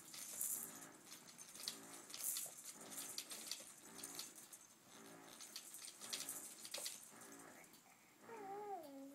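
A baby making short, breathy, pitched grunts, repeated about one or two a second, then a wavering, falling coo near the end.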